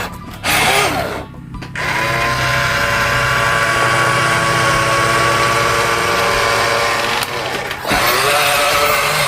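Small electric motor and plastic gearbox of a remote-control toy construction vehicle whining, with a short pause about a second in, then a steady whine for about five seconds before it changes.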